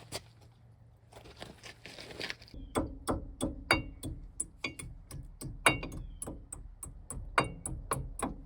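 Repeated sharp metal-on-metal taps, about two a second, some with a short metallic ring, starting a few seconds in: hand tools working a cotter pin out of a truck's front axle nut.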